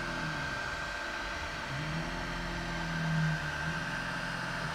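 Snapmaker J1 IDEX 3D printer printing its first layer: the stepper motors whine in tones that change pitch and start and stop as the print head moves, over a steady high fan whine.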